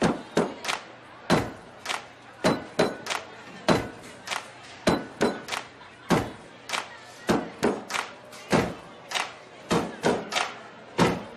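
A group stomping and clapping or slapping tabletops in a steady rhythm: two slow beats, then three quick ones, repeated over and over, as the percussion that opens a song.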